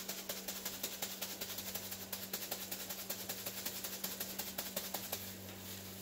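Rapid, even clicking, about eight to ten a second, as a paint-pour canvas is jiggled and tapped to help the poured acrylic paint run, over a steady low hum. The clicking stops about five and a half seconds in.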